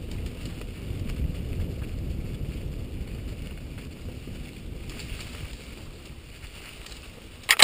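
Mountain bike rolling downhill on leaf-covered dirt singletrack, heard as a steady low rumble of tyres on the trail and wind on the microphone. A sudden loud crackle comes right at the very end.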